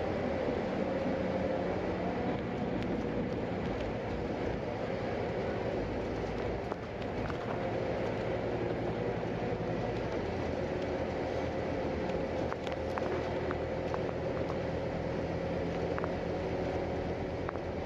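A moving bus heard from inside the cabin: steady engine drone under road and tyre noise. A few light rattles or clicks come about two-thirds of the way through.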